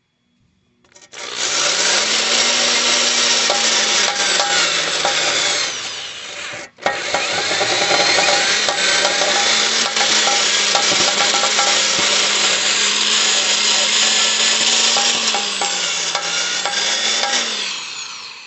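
Power-driven wire brush scrubbing the soft steel of a lawn mower deck at slow speed, taking the sharp burrs off the cut edges. The motor's pitch rises and falls as the speed changes. It stops for a moment about seven seconds in, starts again, and winds down near the end.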